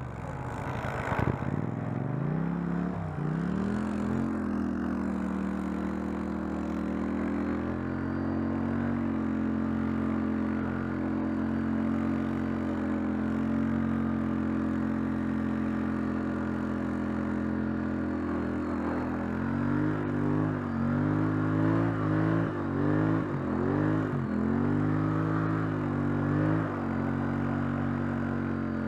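ATV engine running under way, mostly at a steady speed. Its revs dip and recover several times near the start and again through the last third as the throttle is eased and reapplied.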